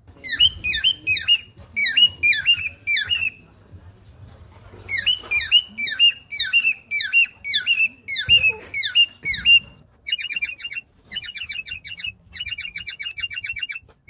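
Male cockatiel courtship whistling: runs of repeated down-slurred whistled notes, a short pause, another run, then fast chattering trills in the last few seconds.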